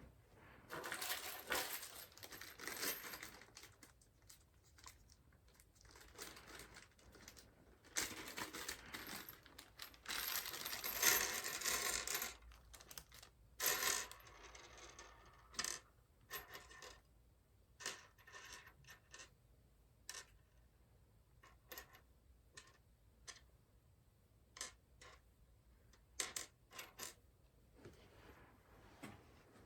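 Hands working on a Zalman P30 PC case: rustling and scraping handling noise in the first half, then a run of sharp, separate clicks and light metallic clinks like small metal parts being set down.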